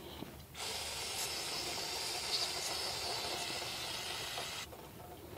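A steady hiss of pressurised spray cleaning the brake caliper slide pins, starting about half a second in and stopping near the end, followed by a sharp knock.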